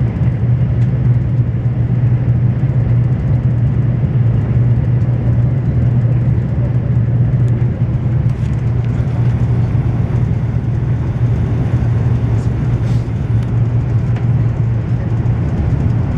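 Cabin noise inside a Renfe AVE high-speed train cruising at about 260 km/h: a steady low hum under a constant rushing sound.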